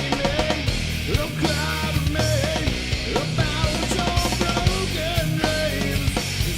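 Background hard rock music with distorted guitar and drums.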